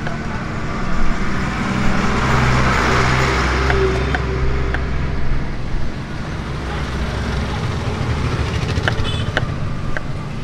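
Road traffic: a motor vehicle's engine hum swells as it passes close, from about two seconds in until it fades by six, over steady traffic noise. A few light clicks of a knife striking a wooden chopping board sound through it.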